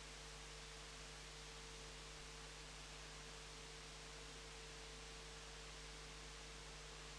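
Near silence: a steady faint hiss with a low hum and a thin steady tone underneath, unchanging throughout.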